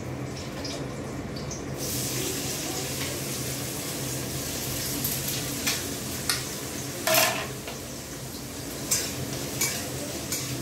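Chopped capsicum and green chillies hit hot oil in a metal wok and start sizzling about two seconds in, then keep sizzling steadily. A metal utensil clinks and knocks against the wok now and then, with one clatter louder than the rest.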